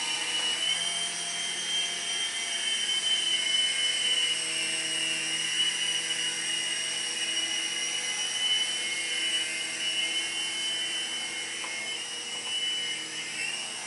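Toy helicopter running with a steady high-pitched whine from its small electric motor and spinning rotor.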